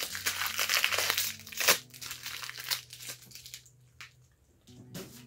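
Clear plastic wrapping being crumpled and crinkled in the hands. It is loud and dense for about three and a half seconds, then drops to softer rustles with a couple of sharp crackles near the end.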